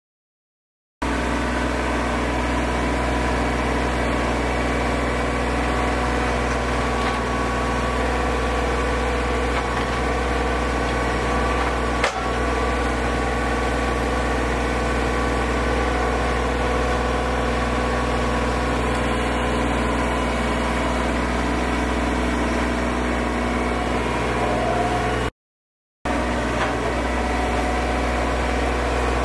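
An engine running steadily at an even speed, starting abruptly about a second in. There is one sharp click about halfway through, and the sound cuts out briefly near the end.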